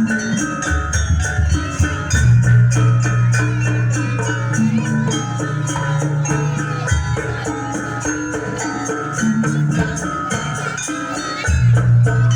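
Live jaranan ensemble music for a dance: a fast, steady run of percussion strokes with ringing tuned percussion over long, deep bass notes that change pitch a few times.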